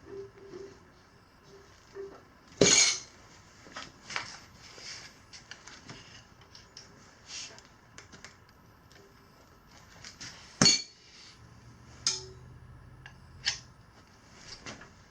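Steel tire irons clinking and scraping against a motorcycle wheel rim while prying the bead of a stiff knobby tire over it in small bites. Irregular sharp metal clicks, with two much louder knocks, one a few seconds in and one past the middle.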